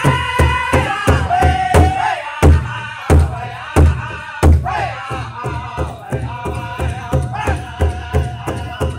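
A powwow drum group singing: several men strike one large shared drum with beaters in a steady unison beat, about three strokes a second, with a few harder strokes near the middle. Over the beat, high-pitched group singing in long phrases that slide downward.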